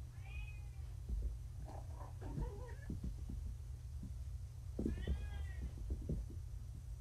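Young kittens meowing: a short meow just after the start, softer wavering calls around two seconds in, and a longer, louder meow about five seconds in, over a steady low hum. The kittens are hungry, with food held back while they recover from their pain medication.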